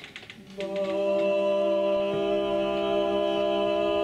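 Barbershop chorus singing a chord on the word "my" after a rib-expanding breath, coming in about half a second in and held steady as one sustained, unwavering chord.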